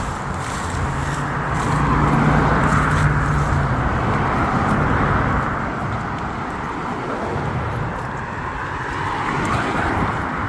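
Street traffic: cars passing, their tyre and engine noise swelling and fading as each goes by, with a low engine hum loudest in the first few seconds.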